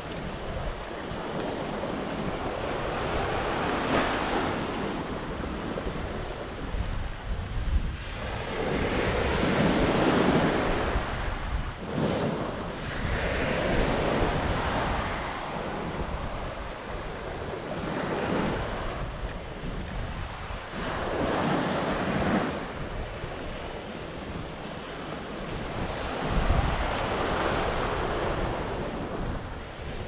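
Sea waves breaking and washing up on a sandy beach, surging and falling back every few seconds, with wind rumbling on the microphone.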